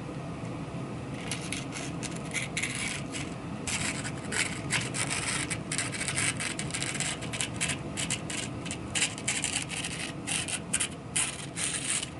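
Knife blade scraping over a surface in quick, irregular strokes, several a second. The strokes start about a second in and grow louder and denser about four seconds in.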